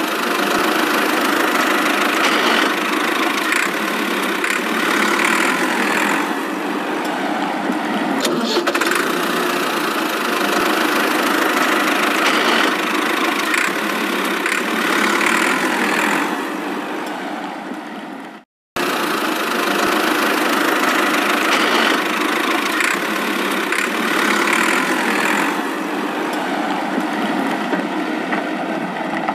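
A motor running steadily with an engine-like drone, stopping abruptly for a moment about two-thirds of the way through and then carrying on.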